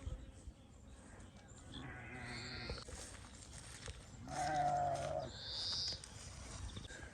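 Farm animal bleating, a goat or sheep kind of call: one weaker bleat a couple of seconds in, then a louder, held bleat of about a second past the middle.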